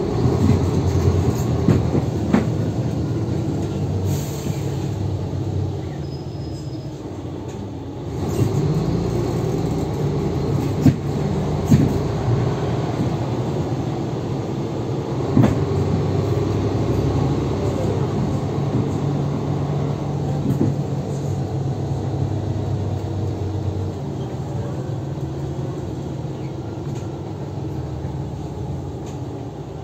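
A Mercedes-Benz O530G Citaro articulated bus with a ZF Ecomat automatic gearbox, heard from inside while under way: a steady engine and drivetrain drone. It drops about six seconds in and picks up again two seconds later, with a few sharp knocks and rattles from the body.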